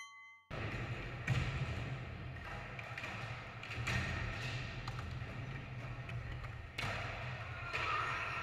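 Skateboard wheels rolling, with repeated clacks and thuds of the board. There is a short electronic beep right at the start, just before it begins.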